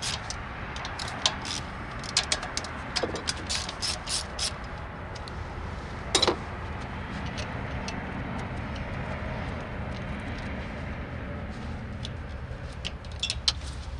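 Ratchet and 10 mm socket clicking, with metal tools clinking, as the bolts holding the fuel pump are loosened. The clicks come in a cluster over the first few seconds, then one louder clink, with a few more near the end, over a steady low hum.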